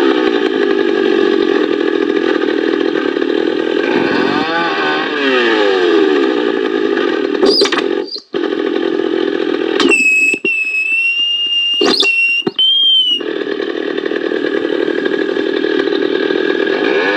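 Echo CS-440 EVL two-stroke chainsaw running while cutting wood, its pitch falling and rising about four seconds in. About ten seconds in, the saw sound cuts out for roughly three seconds, and a high, steady whistle-like tone is heard instead.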